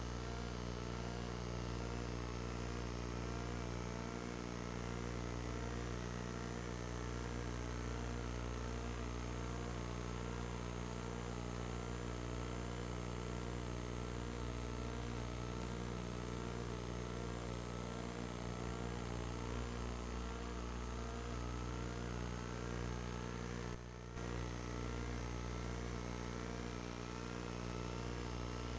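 A steady buzzing hum made of many fixed tones, with fainter wavering and slowly gliding pitches above it; it drops out briefly once about 24 seconds in.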